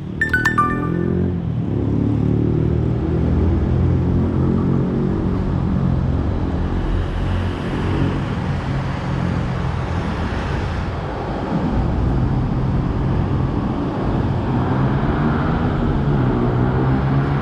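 Docklands Light Railway train running, a steady rumble with a held motor hum. A few short high tones sound about half a second in.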